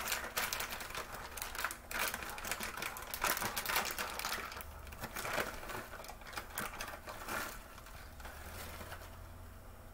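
A thin plastic bag crinkling and rustling as it is handled and squeezed in the hands, with dense irregular crackles that thin out about three-quarters of the way through.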